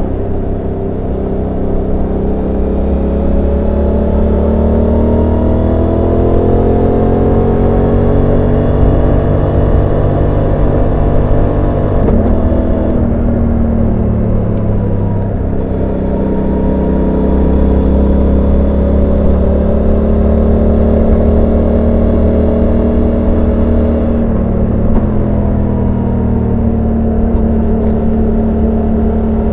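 Suzuki GSX-8S 776 cc parallel-twin engine and exhaust heard onboard while riding, the engine note climbing slowly under steady throttle. About twelve seconds in the pitch drops abruptly, then climbs again and eases off, stepping down again a few seconds before the end.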